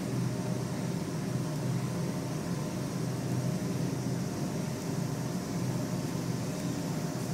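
A steady low mechanical hum with a faint hiss over it, unchanging throughout, with no distinct events.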